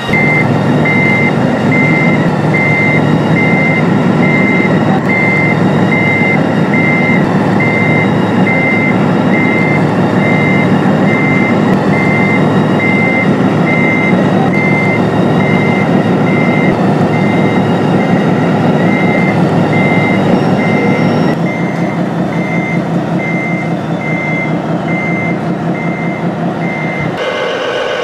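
Sound unit of a radio-controlled model truck playing a diesel engine running under a reversing alarm, which beeps evenly a little more than once a second. About three quarters through, the engine sound drops quieter, and just before the end a different tone joins.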